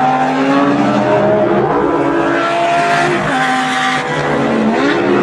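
Truck engine sound effects running and revving, the pitch rising and falling several times.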